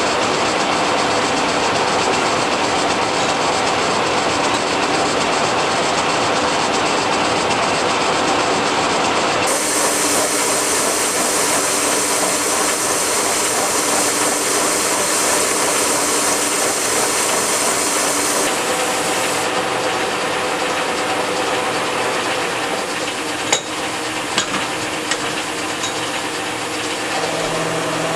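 K&T milling machine with a roughing end mill cutting across the head of a steel railroad rail: a steady, grinding, rasping cut over the running mill's gearing. A couple of sharp clicks come near the end.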